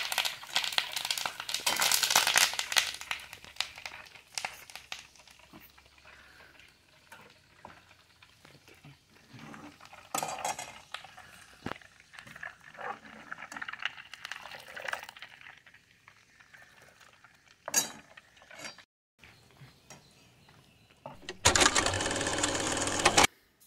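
Steel ladle stirring and clinking against a steel pan of vermicelli cooking for semiya payasam, with a hissing sizzle that is loudest in the first few seconds. Near the end comes a loud edit-transition sound effect of about two seconds that cuts off abruptly.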